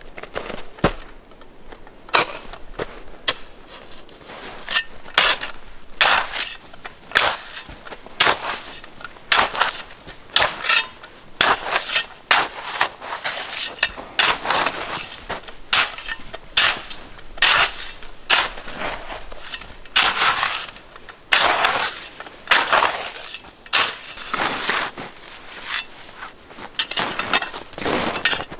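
Snow crunching close by in a long run of irregular, sharp strokes, about one or two a second, some coming in quick pairs.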